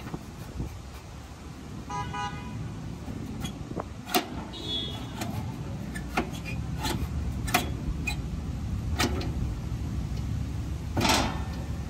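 Sharp clicks and taps of metal parts being handled inside a rooftop electrical disconnect box, over a steady low outdoor rumble of traffic. A short car-horn toot sounds about two seconds in.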